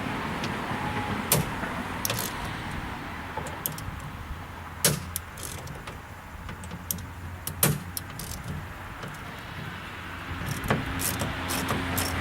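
Scattered sharp clicks and knocks of hand tools and metal parts on a Ford Fusion's rear door latch and handle assembly as it is worked loose, over a steady low background hum.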